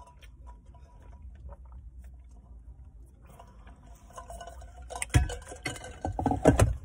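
Quiet sipping from an insulated drink tumbler, then a sharp knock about five seconds in as the tumbler is set down, followed by a short cluster of louder handling knocks near the end.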